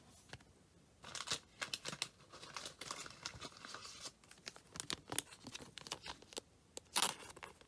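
Foil trading-card pack wrapper crinkling and tearing in the hands, with quick crackles and a louder burst of crinkling near the end.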